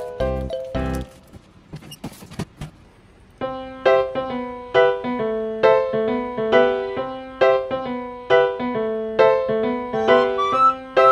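Background music: a light keyboard tune with evenly spaced notes, starting after a short lull about three and a half seconds in.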